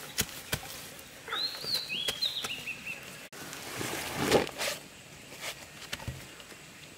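A bird calls a short run of chirps about a second in, among scattered clicks and knocks, with a louder scraping knock about four seconds in.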